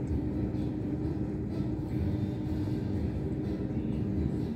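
Steady low rumble of a running engine with a constant hum.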